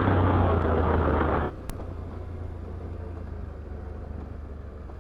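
Can-Am Outlander 850XT's V-twin engine running under throttle, then dropping abruptly about a second and a half in to a much quieter, low steady hum as the throttle comes off, with a faint click just after.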